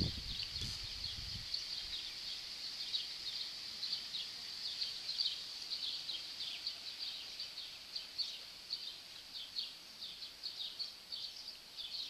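Small birds chirping continuously, many short high chirps a second, thickening towards the end.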